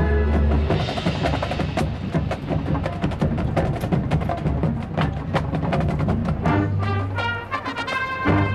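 Marching band playing a field show: a held full-band chord cuts off about a second in, giving way to a percussion passage of quick, crisp strikes, and sustained band chords come back near the end.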